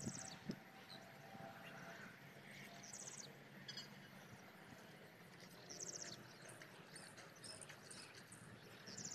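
Quiet outdoor background with short, high chirping trills from a wild animal, repeated about every three seconds.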